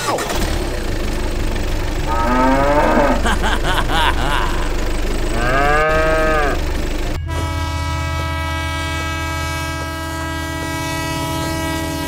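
A cow mooing a few times, then from about seven seconds in a steady train sound: a low hum under several held tones.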